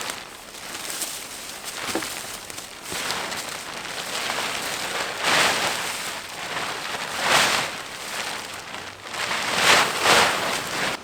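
Plastic tarp rustling and crinkling as it is handled, in loud swells about five, seven and ten seconds in, cutting off abruptly at the end.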